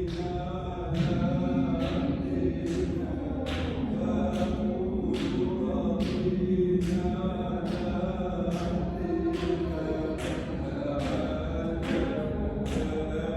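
A Sufi hadra: a group of men chanting dhikr in unison, with a sung melody held over a sharp, breathy pulse that comes about every 0.7 seconds.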